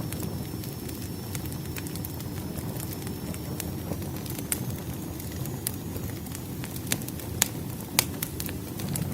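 Campfire burning: a steady low rumble of flames with scattered sharp crackles and pops, a few louder pops near the end.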